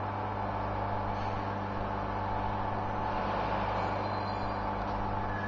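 Vibratory bowl feeder and linear track running: a steady low electromagnetic hum with a continuous rattle of small plastic medical-device parts, such as luers and caps, vibrating along the track.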